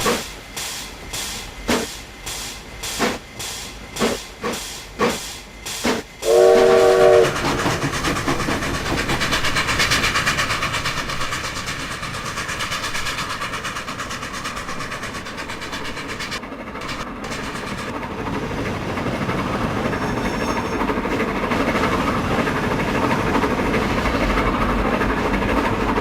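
Steam locomotive working: sharp exhaust chuffs that come closer together as it gathers speed, then a short whistle blast of several tones sounding together about six seconds in. After that comes a steady rumble of the train running along the rails.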